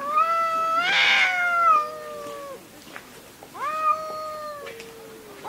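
Domestic cat meowing: two long, drawn-out meows, the first with a harsh rasp in its middle, and a third beginning right at the end.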